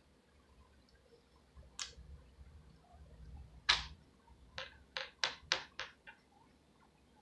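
Short, sharp ticks of a pen on a sheet of paper: a few isolated ones, the loudest about halfway, then a quick run of about six in a row as short strokes are drawn.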